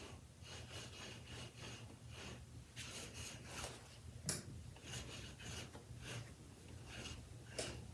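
Sticky lint roller rolled in repeated short strokes over a black fleece hoodie, a light rasping rub with each pass. A sharp tap about four seconds in.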